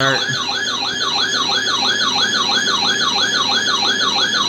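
Weather alert radio's electronic siren alarm for a Special Marine Warning: a rapid warbling tone sweeping up and down about three times a second.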